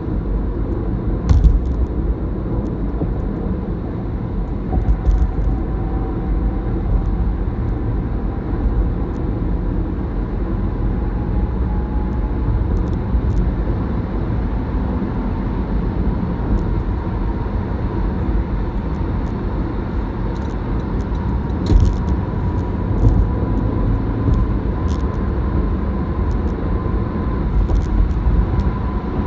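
Car cabin road noise at freeway speed: a steady low rumble of tyres and engine, with a faint thin whine and a few short sharp knocks or clicks here and there.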